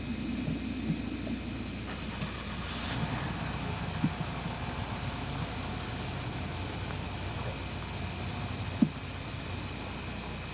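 Steady chorus of crickets and other insects, with an even pulsing trill over a constant high drone, over a low outdoor rumble. A few short clicks break through, the sharpest about nine seconds in.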